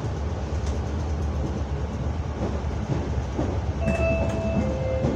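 CAF series 7000 electric train running on the rails, heard from the driver's cab as a steady low rumble. Near the end comes a two-note falling tone, a higher note then a lower one.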